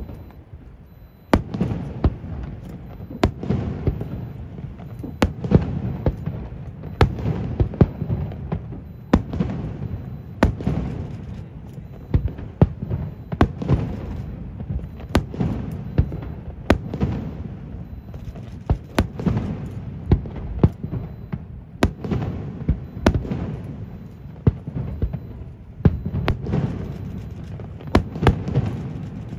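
Fireworks display: a steady run of sharp shell bursts, about one or two bangs a second, each followed by a low rolling echo.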